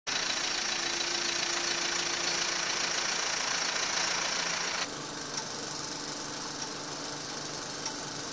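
Farm tractor's diesel engine running steadily, with a strong hiss over its hum. About five seconds in the sound changes abruptly to a slightly quieter, lower-pitched hum.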